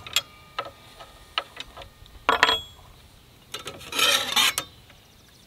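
Metal parts of a DeWalt sliding compound miter saw being handled as the blade's arbor bolt and outer washer are loosened and taken off by hand: scattered metallic clicks, a ringing clink about two and a half seconds in, and a scraping rasp about four seconds in.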